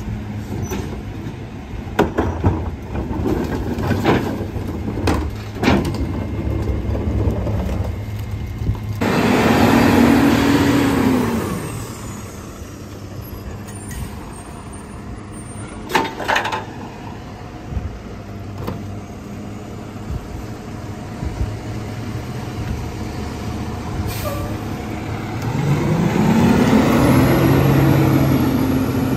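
Rear-loader garbage truck idling, with plastic trash carts knocking against the hopper as they are tipped in. About nine seconds in and again near the end, the engine revs up and settles back as the hydraulic packer runs its compaction cycle.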